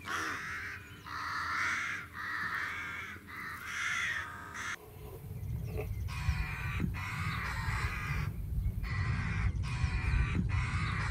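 Corvids calling: harsh calls repeated about once a second. A low rumble joins underneath about halfway through.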